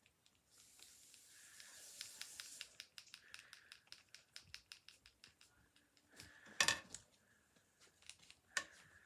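Small clicks and scratches from handling craft materials. There is a brief scratchy rustle in the first couple of seconds and one sharper click a little past the middle.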